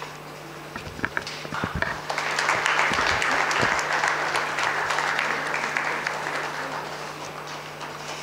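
Audience applause: a few scattered claps about a second in, swelling into full applause about two seconds in, then slowly fading toward the end.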